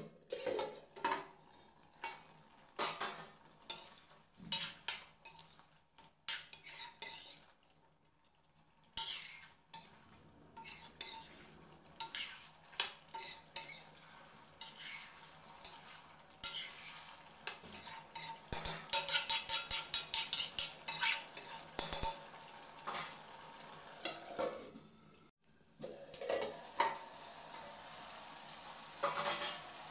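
Steel ladle stirring and scraping chicken curry in a stainless steel kadai: repeated metal-on-metal clinks and scrapes, coming fastest a little past halfway, with the curry sizzling. Near the end the scraping gives way to mostly steady sizzling.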